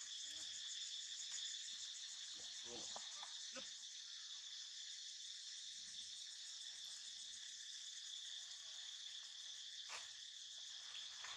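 Steady, high-pitched insect chorus droning without a break, with a few faint rustles about three seconds in.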